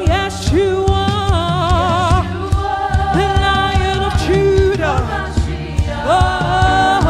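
Gospel praise music: voices singing held notes with vibrato over a live band with a steady beat.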